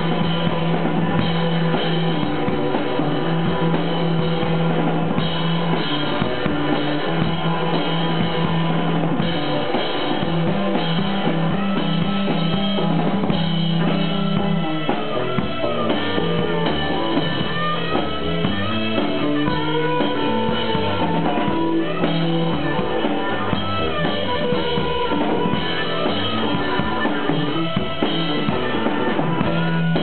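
Live rock band playing an instrumental passage, with drum kit, electric guitar and bass, and a harmonica played into the vocal microphone whose held, bending notes stand out from about halfway through.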